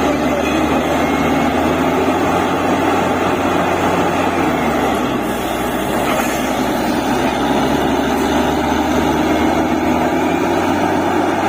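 Borewell drilling machine running steadily at work: a loud, even engine drone with dense mechanical noise over it.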